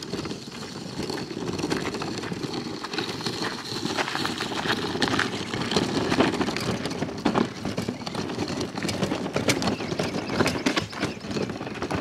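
Small wheels of a JoyTutus portable fridge-freezer rolling over a gravel driveway as it is towed by its handle: a steady crunching and rattling of loose stones with many small clicks, mixed with footsteps crunching on the gravel.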